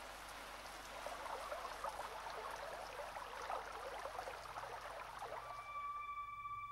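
Heavy rain pattering steadily, then dying away about six seconds in. A low held note and higher steady electronic tones of background music come in near the end.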